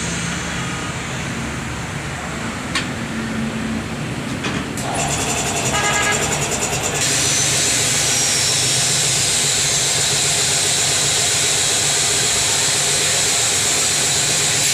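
Tyre-shop work noise over a steady machine hum. About five seconds in comes a brief rapid mechanical rattle, then a steady, loud hiss that runs on.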